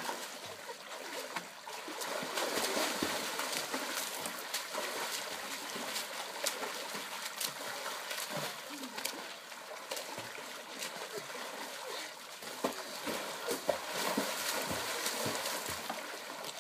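Water splashing in an above-ground pool as children swim, kick and splash one another, with many short, sharp splashes over a constant churning of the water.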